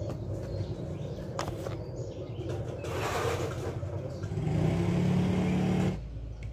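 A motor vehicle engine running nearby, growing louder and steadier in the second half, then cut off suddenly near the end.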